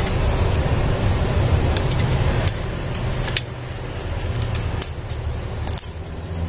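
Several small metal clicks and taps from needle-nose pliers working at the gear shaft of a photocopier fixing-drive gear unit, over a steady low hum that drops away a little after midway.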